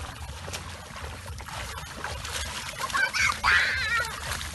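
Children's voices: a high, wavering excited shout or squeal about three seconds in, the loudest sound here.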